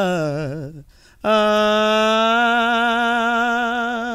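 A man singing unaccompanied into a microphone. A phrase falls in pitch with vibrato and fades out, then after a short break he holds one long note for about three seconds to close the song.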